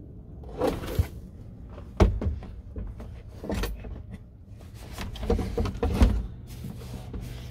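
Knocks and thumps of a Toyota Coaster's in-cab engine cover being lowered and handled, several separate bumps with a cluster near the end, over a low steady hum.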